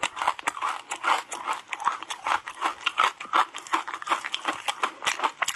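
Close-miked chewing of moulded ice coated in matcha powder: rapid, uneven crunching as the ice breaks between the teeth.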